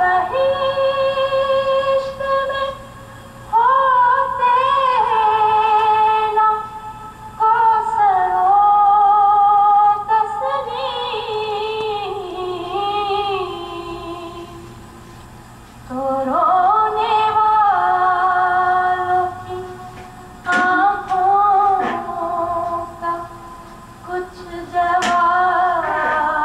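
A woman sings a slow Muharram lament solo, in long ornamented phrases with wavering held notes and short pauses between them. It is heard through a television's speaker in a small room.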